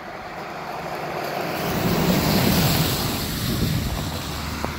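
A car driving past on a wet, slushy road. Tyre hiss and engine noise swell, peak about halfway through, then fade away.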